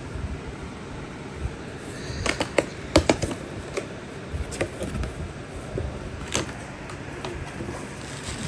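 Handling noise from a cardboard box holding a subwoofer driver: scattered light clicks and knocks, a cluster of them a couple of seconds in and another sharp one past the middle, over a steady low room hum.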